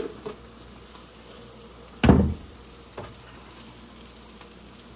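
Food frying in oil in a pan, a faint steady sizzle. A heavy thump comes about two seconds in, and a lighter click about a second later.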